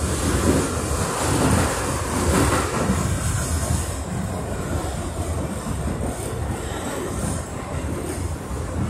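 Interior of an R62A New York subway car running along the track: a continuous rumble and rattle of wheels on rail with a hissing upper edge, a little louder in the first three seconds.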